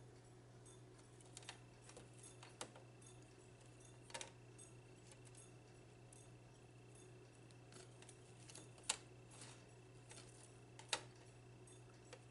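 Near silence over a steady low hum, broken by a few light clicks and taps of eating and handling food, the sharpest about nine and eleven seconds in.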